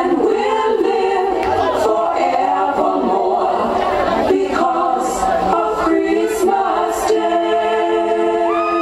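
Group of children singing a song together in chorus, with a few sharp percussive hits about halfway through.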